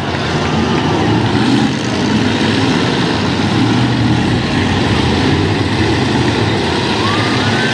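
Several demolition derby trucks' engines running and revving together in a dense, steady drone.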